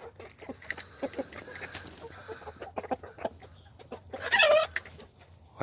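Young chickens clucking softly over food, with many short ticks of pecking. About four seconds in, one bird gives a single loud, high call.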